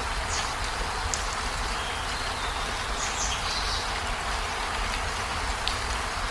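Steady rain falling on a river, an even hiss with a constant low rumble underneath. A few brief, faint high chirps sound through it.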